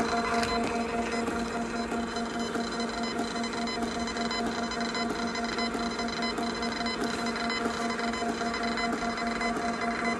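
Zebra GK420d direct thermal desktop label printer feeding out a continuous run of labels, its motor giving a steady, even whine.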